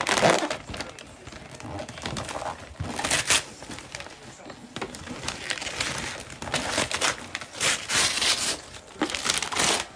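Birthday gift-wrapping paper being torn and crinkled off a boxed present, in irregular rustling bursts, with a loud one right at the start and a run of them near the end.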